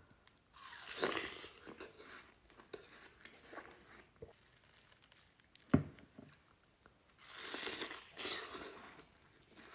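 Close-up crunchy, juicy bites into watermelon and chewing: one longer bite about a second in and another near the end, with a sharp click in the middle.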